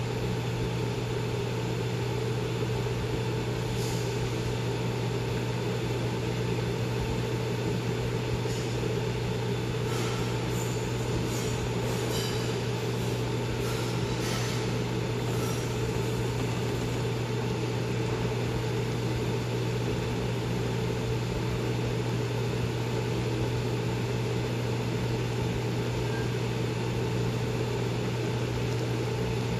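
A steady low mechanical hum with an even hiss while a pot of instant ramyeon boils, with a few faint ticks near the middle.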